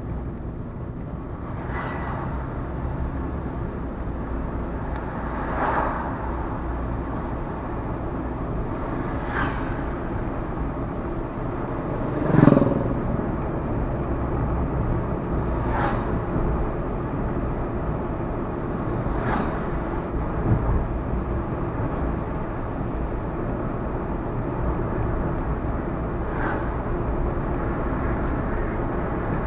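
A vehicle driving along a road, with a steady low engine and road rumble. Short sharp knocks come every few seconds, and there is a louder thump about twelve seconds in.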